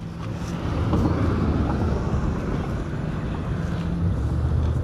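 Steady low rumble of a vehicle engine running, a constant hum with no change in pitch.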